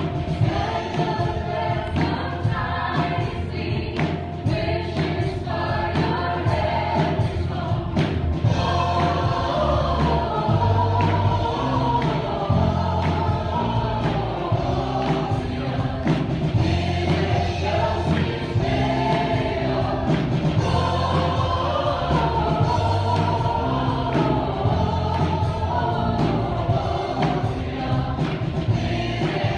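Live worship band playing a gospel song: a woman singing the lead over electric bass and strummed acoustic guitar.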